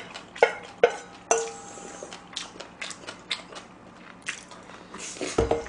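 Metal spoon clinking and scraping in a stainless steel bowl of bibimbap, one clink ringing briefly about a second in, with close-miked chewing and mouth sounds.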